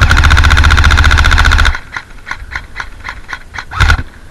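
KWA RM4 A1 ERG electric airsoft rifle firing a fast full-auto burst of about a second and a half, followed by a string of separate, quieter clicks and a second short burst near the end.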